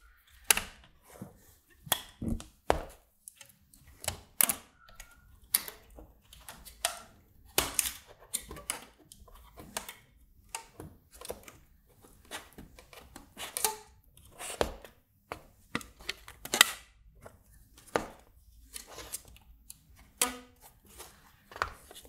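Irregular light clicks and knocks of a circuit board and front panel fitted with toggle switches being handled, lifted and set down on a cutting mat while an elastic band is stretched around it.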